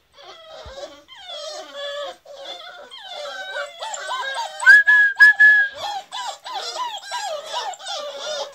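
A litter of beagle puppies whining and whimpering together, many overlapping high cries. About five seconds in it grows louder, with one held high cry and a few sharp knocks.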